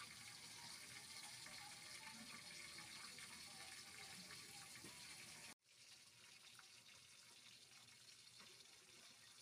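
Near silence: a faint steady hiss that cuts off abruptly about halfway through and comes back slightly quieter.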